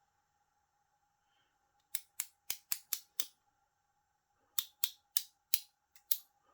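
Ratchet of a Silverline 404706 offset ratchet bit driver clicking as it is worked back and forth: two runs of about six sharp clicks each, roughly four to five a second, with a pause between them.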